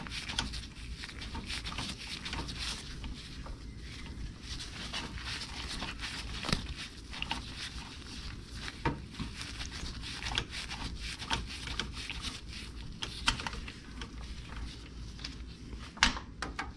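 Nitrile gloves rustling and scattered small metal clicks as a starter mounting bolt is worked into place by hand, with a sharper click about sixteen seconds in. A low steady hum runs underneath.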